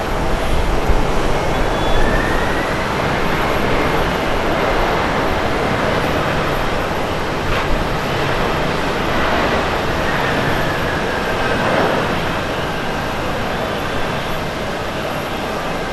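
Boeing 767-300ER's General Electric CF6-80C2 turbofan engines running loud during the landing roll, a steady rush with a faint whine that rises early on and sinks again later as the airliner slows with its spoilers up.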